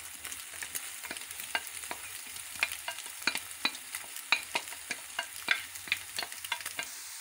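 Hot oil sizzling in a non-stick frying pan as grated vegetables are tipped onto scrambled egg and stirred in, with many irregular knocks and scrapes of a wooden spatula.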